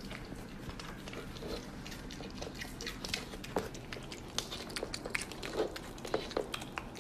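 Mini pig eating soft pumpkin pie off a plate, chewing and smacking its lips in a quick, uneven string of short wet clicks.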